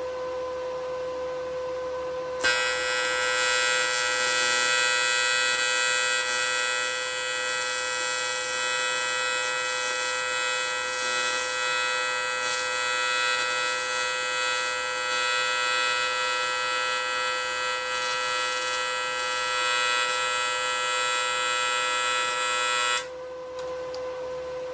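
AC TIG welding arc on aluminium buzzing steadily through one weld pass. It strikes about two seconds in and cuts off sharply near the end when the torch trigger is released. A steady electrical hum runs underneath.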